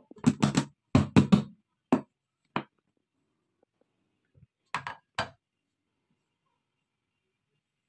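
Chicken pieces knocking inside a lidded container as it is shaken to coat them in seasoned flour. The knocks come in quick flurries: one in the first second and a half, two single knocks after it, then another flurry about five seconds in.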